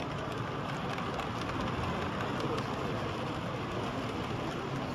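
Steady background hubbub of a busy exhibition hall: many distant voices blended into an even murmur, with no single voice standing out.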